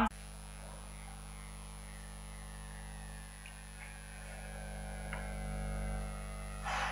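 Steady low electrical hum with faint room noise, and a brief soft noise near the end.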